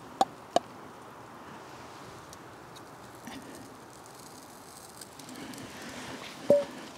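Metal cooking utensils clinking against a wire grill grate while sausages are set on it: two light clicks near the start and a sharper clink with a short ring near the end, over a faint steady background.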